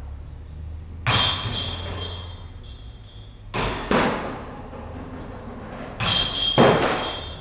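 Putters striking a disc golf basket: the chains jangle and ring about a second in and again near the end, with two sharp knocks in between and a heavier thud near the end.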